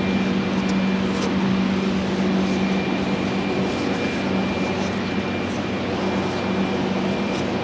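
Steady mechanical hum of a running fan-type machine, with a constant low tone and a few faint ticks.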